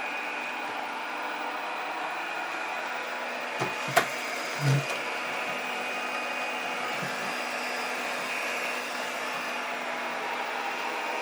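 Chuwi iLife A4 robot vacuum cleaner running, a steady motor hum with a high whine. About four seconds in comes a sharp click, with a lighter knock just before it and a short low thud just after.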